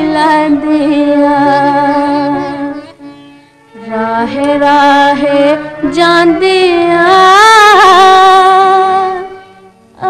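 A woman singing an old Punjabi film song in long, held notes with vibrato, over light instrumental accompaniment. There are two long phrases, with a short break about three seconds in and another near the end.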